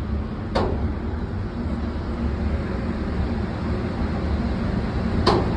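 Steady low rumble of room noise at an indoor shooting range, with two short sharp cracks, about half a second in and again near the end.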